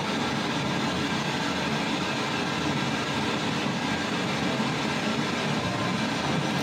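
Radio rapidly scanning down the FM dial, giving a steady rush of static.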